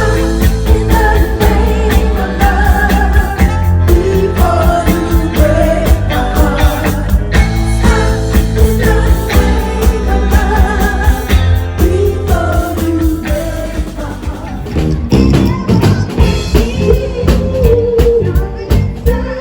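Live band playing a Motown song with vocals, over a steady drum beat and bass.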